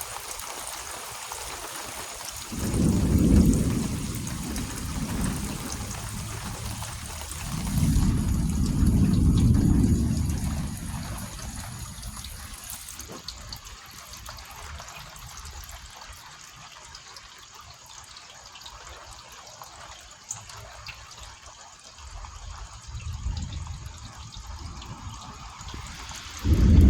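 Steady trickling and dripping of water, with a low rumble swelling up and fading several times, each lasting a couple of seconds.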